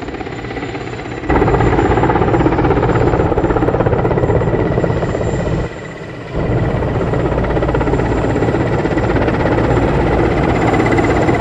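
Helicopter running close by: loud steady rotor and engine noise with a thin, steady high whine. The noise jumps louder about a second in and drops away briefly around the middle before returning.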